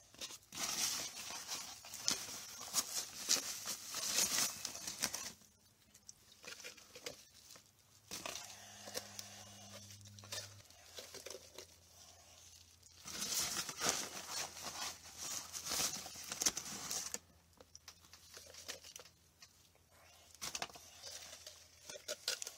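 A stick stirring Quikrete sand topping mix into water in a coffee can: gritty scraping in three main bouts of a few seconds each, with short pauses between and fainter stirring near the end.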